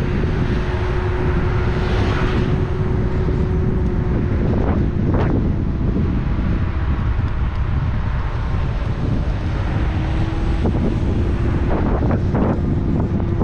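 Wind buffeting the microphone with a steady rumble, over a steady background hum; brief sharper sounds come through about five seconds in and again near the end.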